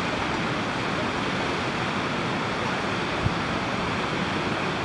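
Steady rushing outdoor noise with one short low thump about three seconds in.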